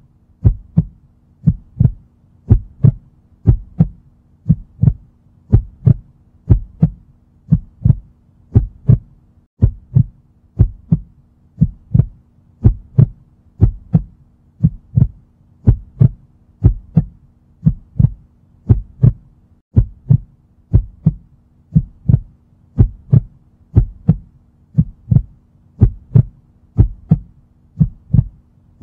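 Heartbeat sound effect: a steady rhythm of deep paired thumps (lub-dub), about one beat a second, over a faint low hum.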